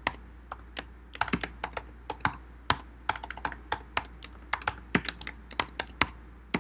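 Typing on a computer keyboard: a line of text keyed in with irregular key clicks, a few per second.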